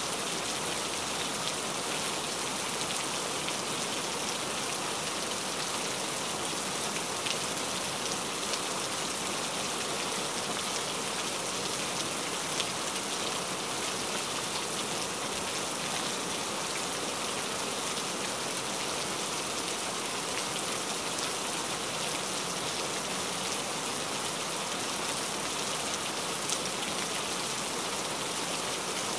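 Steady rainfall: an even hiss of falling rain, with a few louder single drops ticking through it.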